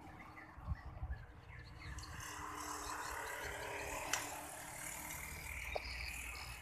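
Quiet outdoor background with a bird or insect chirping in a quick series of short high notes. A few low wind bumps hit the microphone about a second in.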